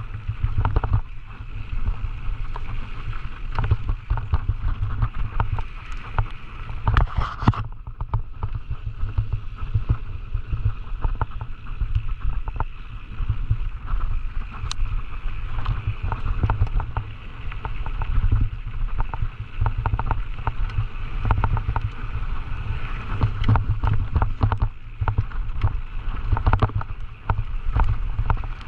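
Onboard sound of a Scott Gambler 920 downhill mountain bike at speed: wind buffeting the camera microphone in a steady low rumble, over a constant clatter of chain, suspension and tyres on rough trail. A heavier burst of knocks comes about seven seconds in.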